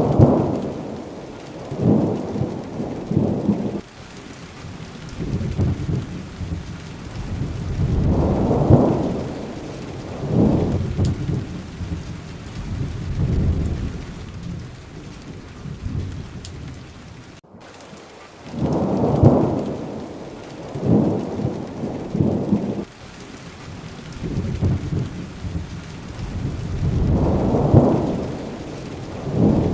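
Steady heavy rain with thunder rumbling again and again, a roll every few seconds swelling up and dying away.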